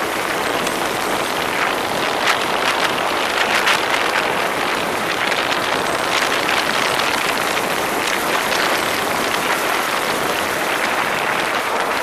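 Go-kart running on track at racing speed, heard onboard as a steady, noisy rush of the kart's running and wind, with no clear engine note.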